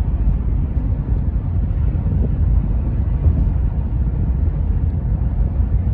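Steady low rumble of road and wind noise inside a car moving at freeway speed.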